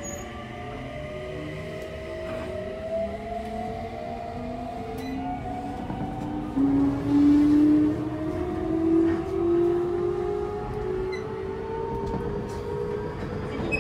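Hitachi GTO-VVVF inverter and traction motors of a Toei Mita Line 6300-series early-build train whining as it accelerates, heard from inside the car: several tones climb steadily in pitch together over the running rumble, swelling loudest about seven seconds in.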